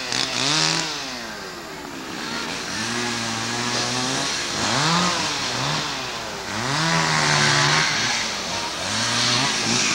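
Chainsaw running, its engine revving up and down over and over as fallen trees are cut up.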